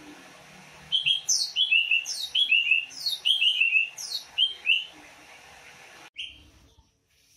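Cucak ijo (green leafbird) singing: rapid series of sharp chirps and high whistles sweeping downward, in about four quick bursts, with one last note before it stops abruptly.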